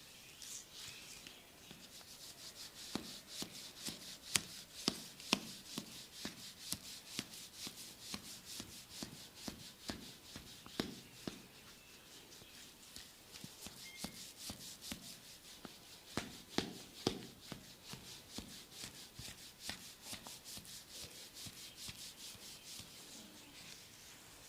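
Massage strokes on oiled skin: quick, regular slapping and rubbing, about two to three strikes a second, some with a duller knock.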